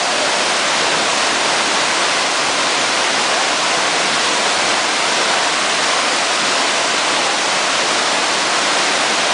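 A waterfall pouring, a steady, dense hiss of falling water with no change in level.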